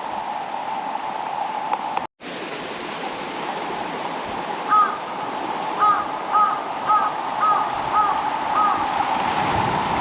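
Steady rushing of stream water, broken by a split-second dropout about two seconds in. Past the middle, a bird gives a run of about seven short, evenly spaced calls.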